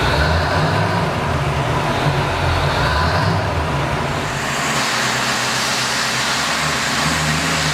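Motor vehicle engine running with road noise. About halfway through, the low rumble drops away and a brighter hiss takes over.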